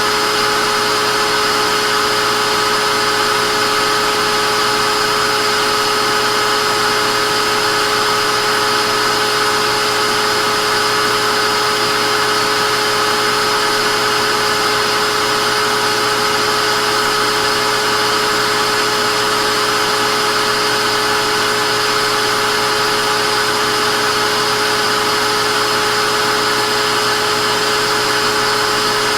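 Vacuum cleaner motor running steadily: a constant rush of air with a high whine held at an even pitch.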